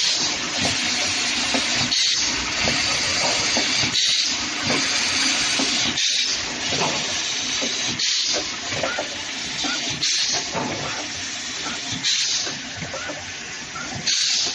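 Automatic assembly machine for antigen test kits running: a steady loud hiss with light mechanical clicking underneath, dipping briefly about every two seconds.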